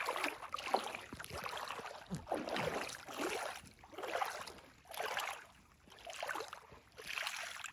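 Bare feet moving in shallow lake water, splashing and sloshing in repeated surges about once a second.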